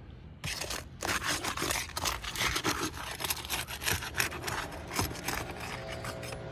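Rough, repeated scraping and rubbing against roof shingles as work on the damaged shingle begins, starting about half a second in.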